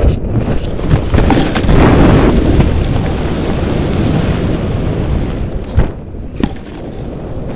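Snowboard riding at speed, heard through an action camera: heavy wind buffeting on the microphone and the board rumbling over packed snow, with two sharp knocks near the end.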